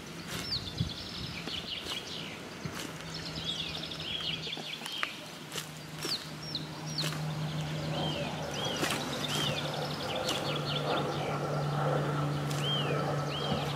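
A chick peeping over and over in distress while held in a mangrove monitor's jaws: many short, high, arched peeps. Scattered rustles and knocks run through it, and a low steady hum comes in a few seconds in and grows stronger in the second half.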